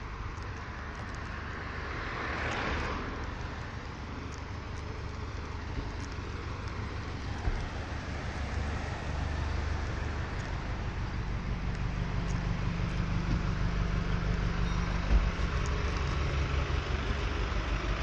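Street traffic with one vehicle passing about two seconds in. Later a minibus engine idles close by with a steady low hum, and there is a single knock near the end.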